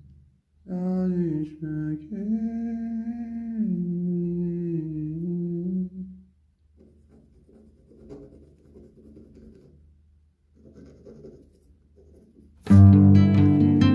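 Background music: a slow hummed vocal line for the first several seconds, then after a quiet stretch loud plucked-guitar music comes in near the end.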